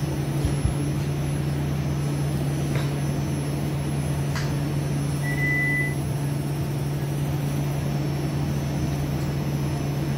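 Steady low electrical hum of cardiac cath lab equipment, with one short high electronic beep about five seconds in and two faint clicks before it.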